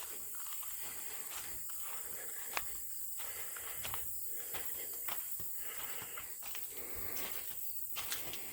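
Footsteps of a person walking outdoors, an uneven run of scuffing steps with a few sharp clicks, the loudest about two and a half seconds in.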